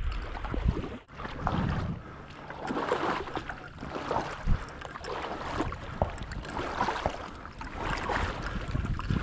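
Water sloshing and splashing in rhythmic surges, about one a second, from steady movement through marsh water toward a downed duck.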